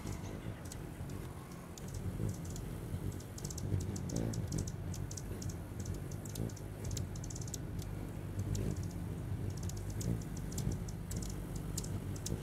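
Hummingbirds at feeders giving rapid, irregular high chip calls, with the low hum of their wings underneath.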